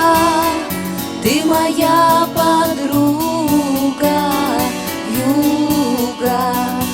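A song playing: a melody line with vibrato over a backing track with a steady beat.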